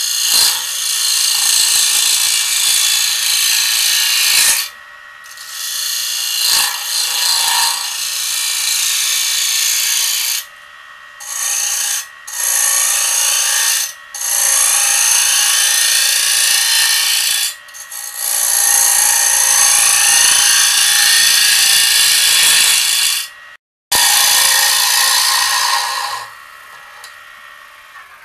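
Bowl gouge cutting the inside of a large red oak bowl spinning on a wood lathe, taking shavings in a series of passes a few seconds long with short breaks between them. A faint steady high whine runs underneath. The cutting stops about two seconds before the end, leaving only the quieter sound of the lathe running.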